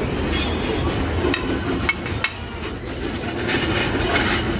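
Busy buffet dining-room din: a steady low rumble of room noise with a few sharp clinks of dishes and utensils, then a denser clatter of metal serving tongs and pans near the end.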